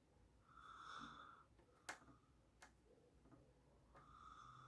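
Near silence with two faint sharp ticks and two soft hisses.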